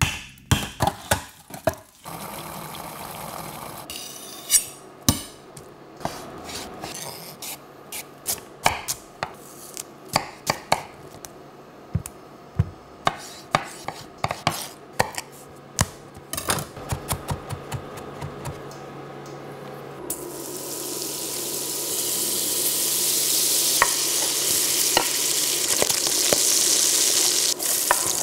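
Kitchen prep sounds: a knife cutting into jellied stock in a metal tray, then a chef's knife chopping tomato on a wooden cutting board, sharp knocks coming in quick runs. From about twenty seconds in, diced bacon and onion sizzle steadily in a hot pot, the sizzle growing louder, with a few knocks of a wooden spoon and board.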